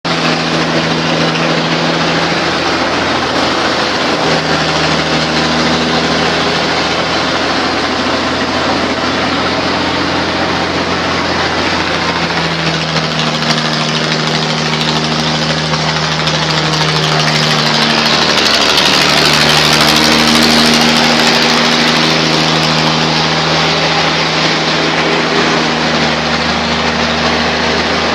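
Coconut husk decorticating machine running loudly, a steady mechanical drone over a rushing noise. The drive's pitch shifts up and down several times, and a harsher hiss swells for a few seconds in the middle.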